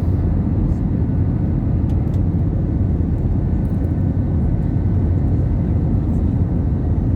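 Steady low rumble of an Airbus A320 heard from inside the passenger cabin, with faint steady high tones above it.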